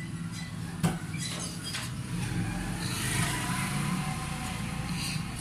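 A metal pedestal-fan blade being handled and shifted on the floor, with one sharp knock about a second in, over a steady low hum.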